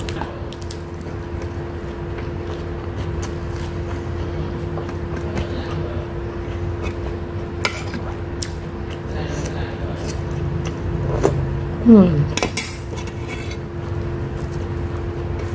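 Eating sounds: a spoon clicking and scraping against a plate and fingers working through rice, with scattered short clicks over a steady hum. About twelve seconds in, the loudest moment: a few sharp clicks and a short sound sliding down in pitch.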